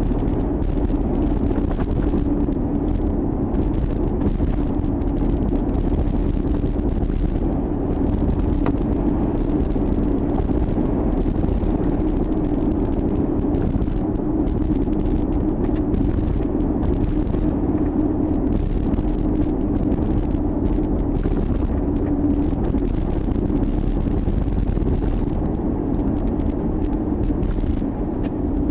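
Chevrolet Tahoe under way: a steady drone of engine and road noise with a constant low hum.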